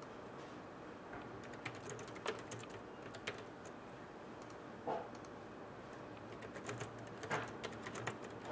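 Faint, scattered keystrokes on a computer keyboard: single key clicks every second or so, then a quicker run of several clicks near the end.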